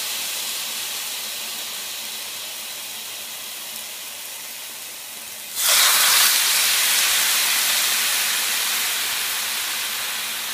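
Marinated chicken halves sizzling in a hot pan greased with olive oil. About five and a half seconds in the second half is laid in, the sizzle jumps much louder, then slowly dies down.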